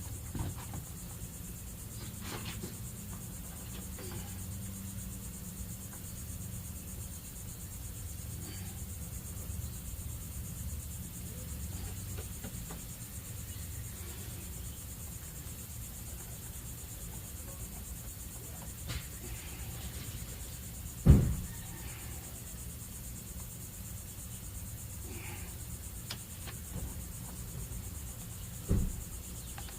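Crickets chirring steadily in the background over a low hum. A single loud knock comes about two-thirds of the way through, and a smaller one near the end.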